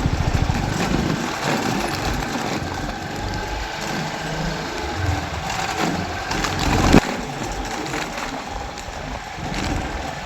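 A small motor vehicle's engine running steadily amid wind and road noise, with one sharp knock about seven seconds in.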